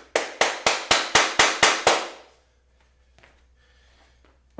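Rail being tapped onto the edge of a PVC panel of a reptile enclosure: about eight quick, evenly spaced sharp taps, roughly four a second, then a couple of faint knocks.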